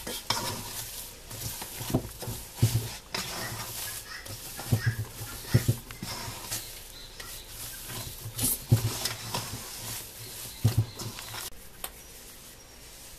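Hands kneading a stiff biscoito de queijo dough of cheese and manioc starch (polvilho) in a metal bowl. The dough rubs and presses against the bowl, with about six dull irregular thumps as it is pushed down into the bowl. The working sound quietens near the end.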